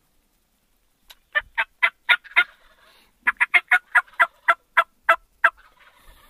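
Turkey yelps: two runs of short, sharp notes, about six and then about nine, at roughly four a second.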